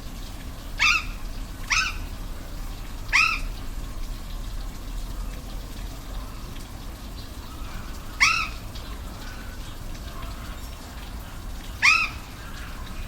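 An animal giving short, sharp calls five times: three close together early, then two more spaced several seconds apart. Under them runs a steady rush of falling water.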